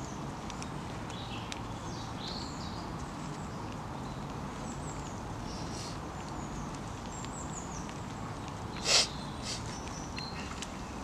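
Woodland ambience: small birds chirping with short, falling high notes over a steady outdoor hiss, and one short, loud thump or scrape near the end.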